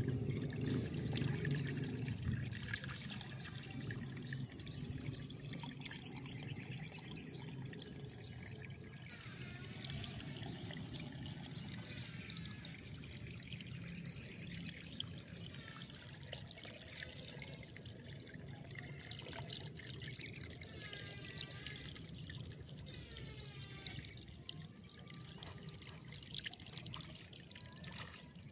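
A hand swishing in shallow rice-field water for the first couple of seconds, then a steady trickle of flowing water. Faint high chirps come and go over the trickle from about ten seconds in.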